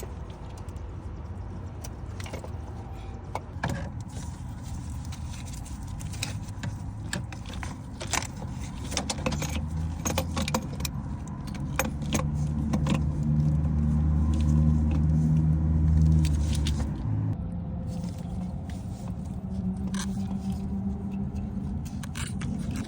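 Hand tools and metal parts clinking and scraping as a car's starter motor is unbolted and fitted, with a vehicle engine running in the background whose drone swells in the middle and then eases off.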